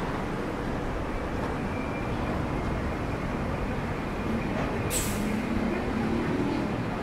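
City street traffic: a steady wash of passing vehicles, with a low engine hum joining about four and a half seconds in and a short hiss near five seconds.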